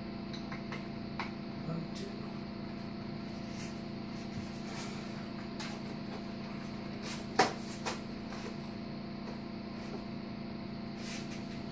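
A satellite receiver's cover being fitted back onto its chassis: a few light clicks near the start, then a sharp clunk about seven seconds in and a smaller one just after, over a steady low hum.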